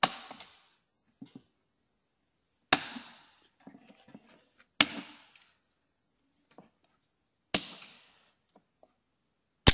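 Cutting pliers snipping off the protruding ends of metal repair staples melted into a plastic bumper: five sharp snaps, about two to three seconds apart.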